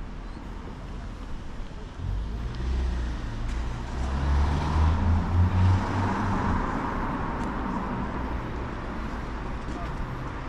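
A car passing on the road, its engine and tyre noise swelling about four seconds in and then slowly fading.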